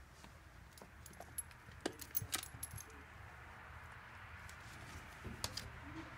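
Light metallic jingling and clicking, a cluster of quick clinks about two seconds in and a few more near the end, over a faint steady hiss.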